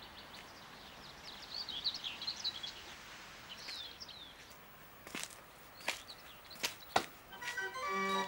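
Small birds chirping and twittering, followed from about five seconds in by a handful of sharp, separate knocks, like a paver's hammer setting cobblestones. Music begins just before the end.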